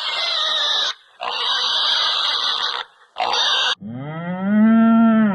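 Animal calls: three harsh, noisy squeals with short gaps between them, then a longer pitched call that rises and then holds steady near the end.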